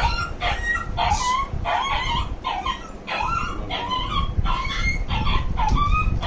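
Labrador retriever whining in a run of short, high cries that bend in pitch, about one or two a second.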